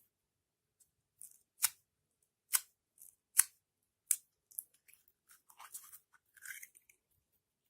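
Slime being worked by hand, giving four sharp pops about a second apart as air pockets burst, then a run of softer crackling and squishing near the end.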